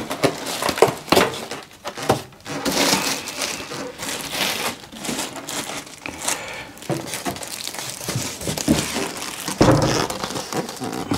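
Plastic cover bag around a PC case crinkling and rustling as hands work a polystyrene foam end cap off it, with a louder, heavier rustle and bump near the end as the foam comes free.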